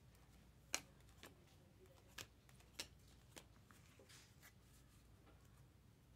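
Faint handling of chrome trading cards: a few light clicks and ticks as cards are flipped and slid against each other by hand, with a soft rustle near the middle.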